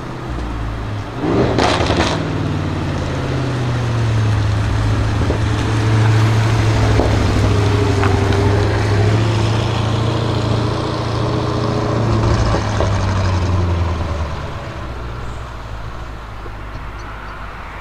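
Audi RS6 Avant C7's twin-turbo V8 through a Milltek exhaust: a sharp burst of engine and exhaust noise with a quick rise and fall in pitch about a second and a half in, as the car passes. A steady low engine drone follows and eases off in the last few seconds.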